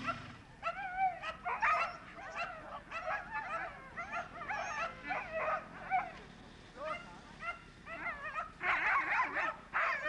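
Excited coursing sighthounds, held at the start line, whining and yipping in rapid, wavering high-pitched runs as they strain to be released after the lure, loudest just before the release near the end.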